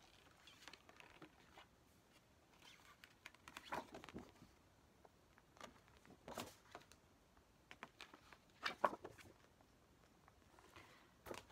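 Quiet handling of paper album inserts: a few brief, soft rustles and taps, about four, six and nine seconds in, against near silence.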